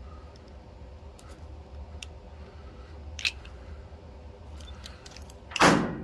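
A few light metal clicks of a screwdriver working at a stuck main emulsion tube in a small-engine carburetor, then near the end a loud knock as the part is struck to drive the tube out.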